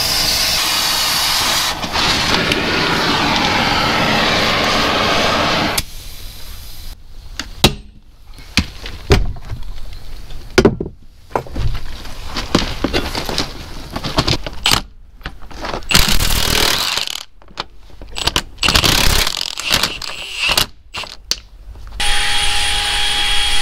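Oxy-acetylene torch flame hissing steadily against a tractor's front wheel hub, cutting off after about six seconds. It is followed by scattered metal clanks, knocks and scrapes as the front wheel is worked off its spindle.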